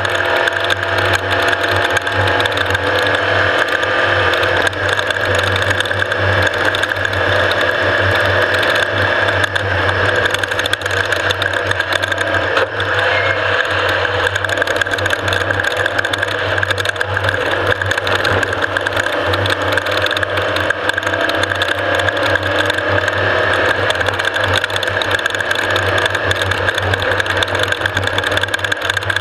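Off-road race vehicle running hard, heard from on board: a steady engine note under continuous mechanical rattling and clatter from the chassis and drivetrain.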